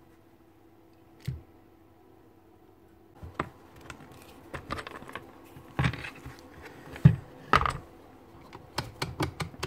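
Plastic housing and parts of a Milwaukee cordless magnetic drill being handled and taken apart with a screwdriver: a single knock, then from about three seconds in an irregular run of clicks, taps and clattering knocks as the red plastic casing is worked open.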